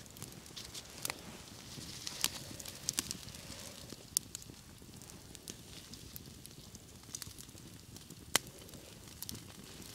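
Small wood campfire crackling, with sharp irregular pops; the loudest pop is about eight seconds in.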